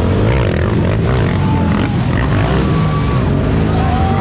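Several racing ATV engines revving hard at once: a loud, continuous mix of engine notes rising and falling over each other.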